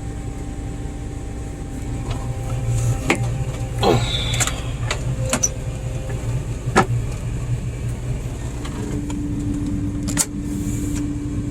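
Combine harvester's engine idling steadily while it warms up, with several sharp clicks and knocks along the way.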